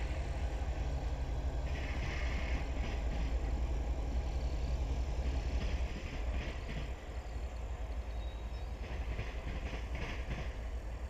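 CSX freight train rolling slowly past, its diesel locomotive giving a steady low rumble. Steel wheels on the rail add several short spells of hiss and squeal.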